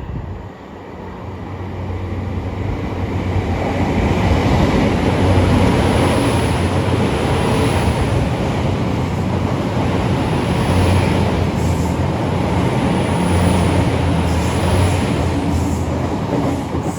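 Great Western Railway Class 800 bi-mode train passing slowly through the station under diesel power, its underfloor engines droning steadily along with wheel and track rumble. It grows louder over the first few seconds, then holds steady.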